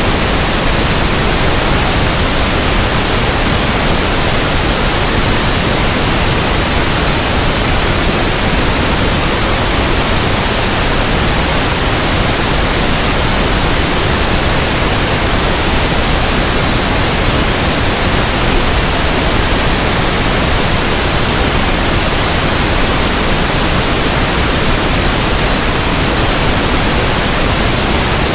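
Steady, unchanging pink noise: an even hiss spread from the deep lows to the highs, with no pattern or events.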